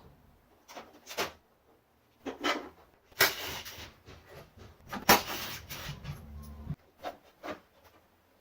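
Work noises from dismantling: scattered sharp clicks and knocks, with two louder scraping rattles near the middle, as parts and tools are handled.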